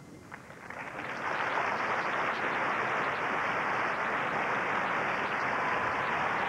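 Large crowd applauding, swelling up over the first second and then holding steady.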